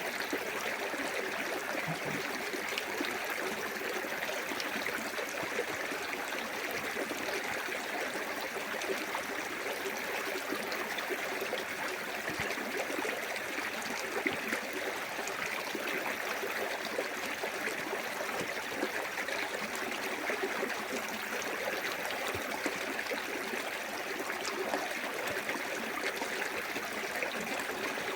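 A small waterfall in a clear woodland creek: water running and splashing steadily over rocks, with a continuous rushing and light gurgling.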